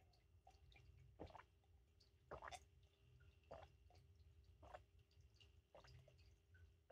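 Near silence, broken by about half a dozen faint gulps and swallows as someone drinks from a mug.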